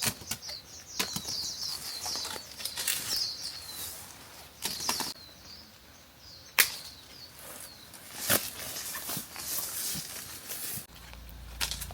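Rustling with irregular sharp snaps and clicks, over high, quick chirps of small birds.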